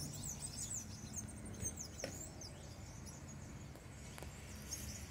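Many small birds chirping in a tree: quick high chirps, thickest in the first second and a half and again near the end. Under them runs a faint low steady hum.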